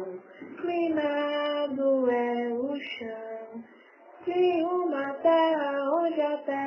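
One high voice singing a melody in two phrases, holding long notes that glide up and down, with a short pause about halfway through.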